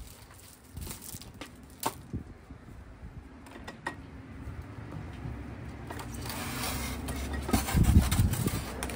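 Handling noises of an electric trailer tongue jack being unpacked: a few light clicks and knocks, then the scrape and rub of its styrofoam packing tray as the jack is pulled free, growing louder and loudest near the end.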